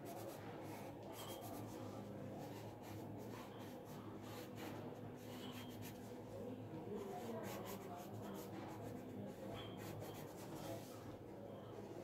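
Pencil scratching on paper in many short, irregular strokes, shading and drawing, over a steady low hum.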